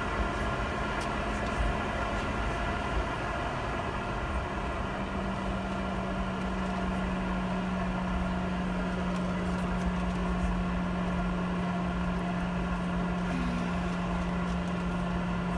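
Steady cabin noise inside a Boeing 717-200 jet taxiing: an even engine and air hum with a low steady tone that steps slightly higher about four and a half seconds in.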